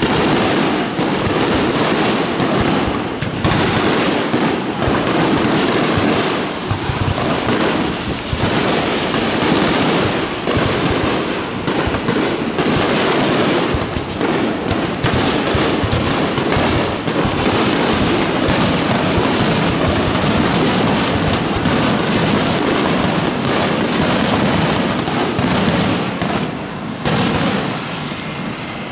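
Aerial firework shells bursting in a rapid, dense barrage: an unbroken run of booms and crackle, easing slightly near the end.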